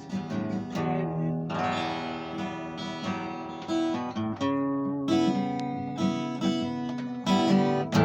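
Acoustic guitar being strummed and picked, chords changing every second or so, with a louder strum near the end.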